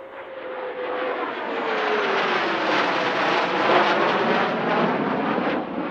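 F-15E Strike Eagle twin-engine fighter jet roaring past, the roar swelling over the first couple of seconds and then holding. A whine drops in pitch as the jet goes by.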